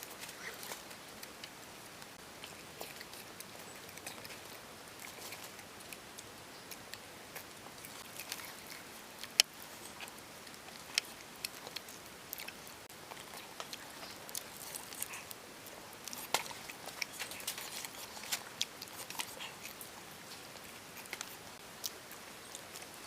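Eating burnt roasted wild yam: irregular crisp clicks and crunches of biting and chewing, with one sharper snap about nine seconds in.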